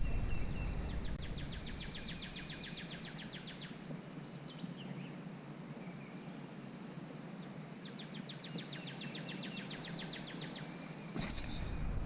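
A songbird singing: held whistled notes leading into a fast, even trill, heard twice. A low rumble sits under the start and cuts back in with a click about 11 seconds in.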